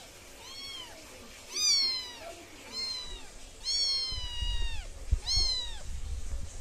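Young kitten mewing five times in a row, high-pitched calls that rise and then fall away, the fourth one drawn out the longest. A few dull low bumps come in the second half.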